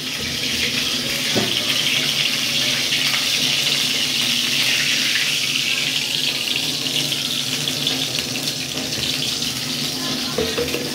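Steady hiss of oil heating in an iron kadhai on the stove while more oil is poured in, with a light knock about a second and a half in.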